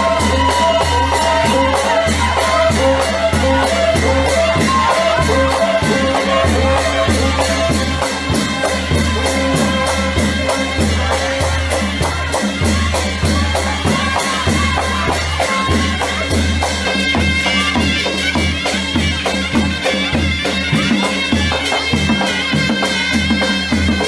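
Folk music with a steady beat and a reedy melody over a sustained drone.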